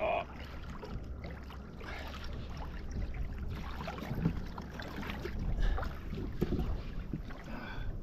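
Seawater lapping and splashing irregularly against a sea kayak's hull, over a steady low rumble of wind on the microphone.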